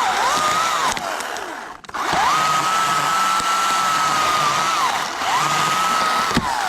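Two-stroke chainsaw running at high revs, easing off and revving back up several times, with a brief break a little under two seconds in.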